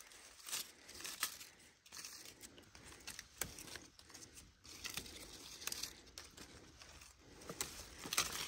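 Faint irregular rustling and crackling, with scattered short clicks at uneven spacing.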